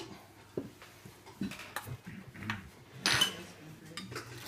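Metal spoons clinking and scraping on a steel serving bowl and plates as whipped cream is dished out, a few light clinks with the loudest one about three seconds in.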